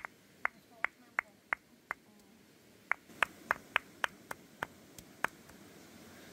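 Sharp knocks repeated about three times a second, in two runs with a pause of about a second between them, over a faint steady hiss.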